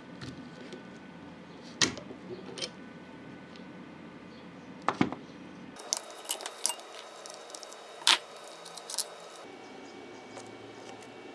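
Steel parts of a small lathe tailstock clicking and clinking as the tailstock is taken apart by hand and its handwheel worked off the screw. A scattered series of sharp metallic clicks, the loudest about eight seconds in.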